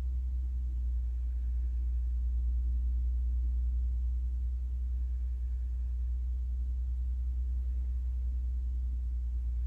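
Steady low hum of background room noise, unchanging throughout, with no other sound.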